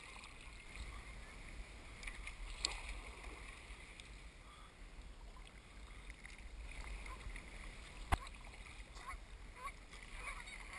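Kayak paddling on calm water: water trickling and dripping off the paddle blades and along the hull, over a low steady rumble. Two sharp knocks, a lighter one about two and a half seconds in and a louder one about eight seconds in.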